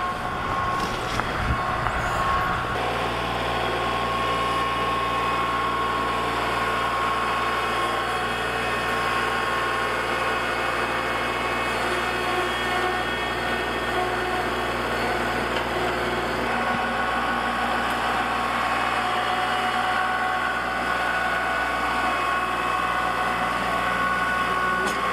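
Kubota L3901 compact tractor's three-cylinder diesel engine running steadily while its front loader pushes a pile of wood chips.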